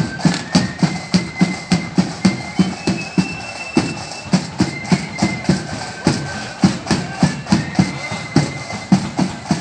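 Marching band playing a march: a steady, evenly spaced drum beat with a high sustained melody line above it.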